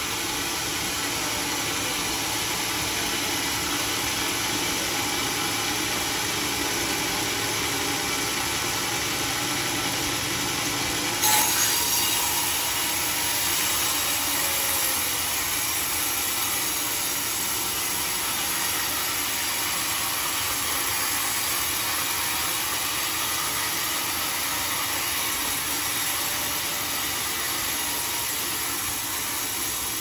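Band sawmill running and sawing lengthwise through a large teak beam. The sawing grows suddenly louder and hissier about eleven seconds in, and holds like that until near the end.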